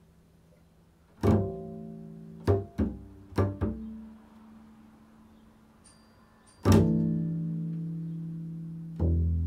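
Double bass strings plucked: a handful of short notes in the first few seconds, a pause, then a long ringing note about two-thirds of the way through and another near the end, while the bassist tunes the instrument, which he calls out of tune.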